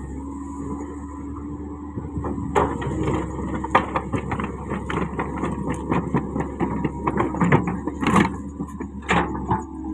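Komatsu PC130 excavator's diesel engine running steadily. From about two and a half seconds in it is joined by a run of irregular metal knocks and clanks, the loudest two near the end, on a machine whose track has come off.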